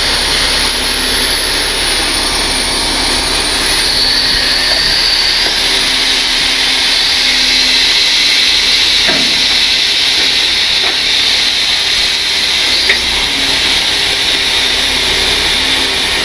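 Rollback tow truck's wheel-lift hydraulics lowering a towed truck's wheels to the ground: a steady hiss and faint high whine over the running truck engine.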